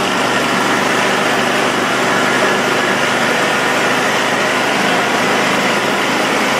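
An engine running steadily and loudly close by.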